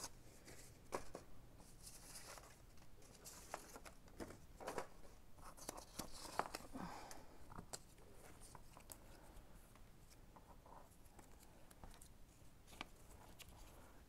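Faint paper rustling and small clicks and taps as hands handle and press paper scraps onto an envelope on a cutting mat, busier in the first half and thinning out after that.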